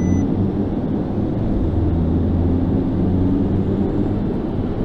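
Audi RS3's turbocharged 2.5 TFSI five-cylinder running at low revs on a chassis dynamometer, heard from inside the cabin with the exhaust valves open, as the car is shifted up into fourth gear to line up for a power run. It makes a steady low drone.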